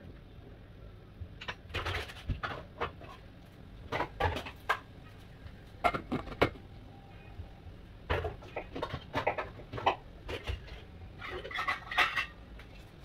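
Cookware clattering: a wooden spatula knocking against a stainless-steel pot and a glass lid clinking onto its rim, in several short bursts of knocks over a steady low rumble.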